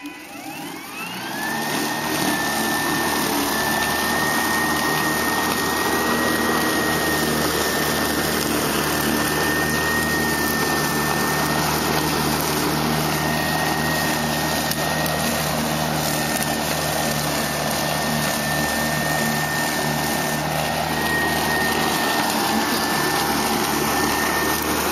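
Battery-powered self-propelled walk-behind lawnmower's electric motor spinning up with a rising whine over the first second or two, then running steadily with a high whine as it cuts grass.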